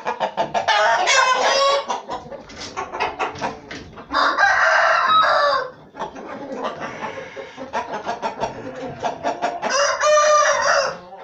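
Aseel (Indian game) roosters crowing three times, about a second in, in the middle and near the end, with quick short clucks in between.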